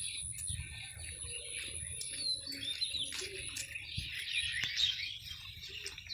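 Small birds chirping and calling: scattered short chirps and quick sweeping whistled notes, over a thin steady high-pitched tone that fades out a little past halfway.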